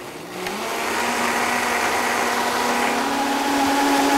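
High-powered blender starting up about half a second in and running steadily as it purees a full jar of tomato gazpacho, its motor pitch edging slightly higher near the end.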